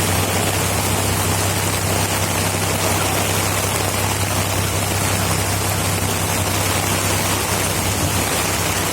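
Heavy rain falling in a steady hiss, with a low steady hum underneath.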